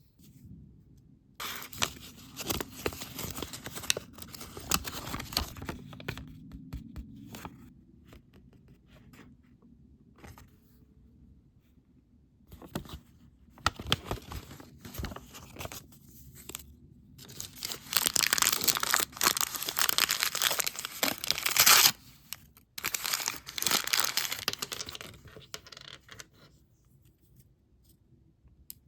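Packaging crinkling and tearing as craft-kit materials are handled, in several separate bouts with quiet gaps between them. The longest and loudest bout comes a little past the middle.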